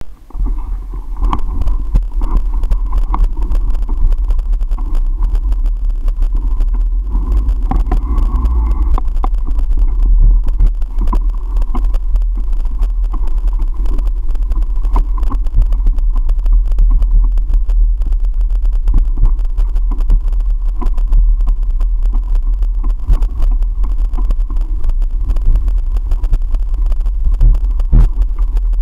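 Mountain bike ride heard through heavy wind rumble on the microphone, with frequent small rattles and knocks as the bike rolls over a paved path and a bumpy grass-and-dirt trail.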